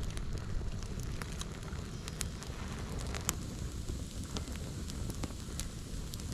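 Small campfire of bark and kindling crackling, with scattered sharp pops over a steady low rumble.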